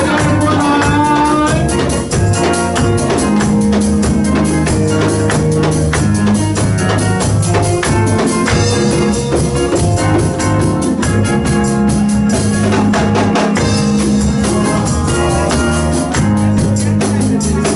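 Live church band playing: an electronic keyboard on an organ sound holding chords over a drum kit keeping a steady beat.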